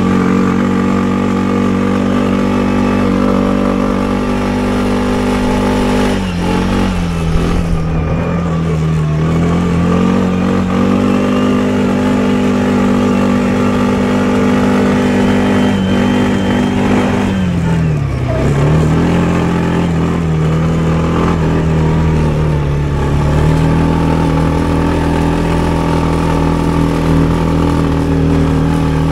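Loncin XWolf 300 ATV engine running under way at a steady pitch. The revs drop and pick back up twice as the throttle is eased off and opened again.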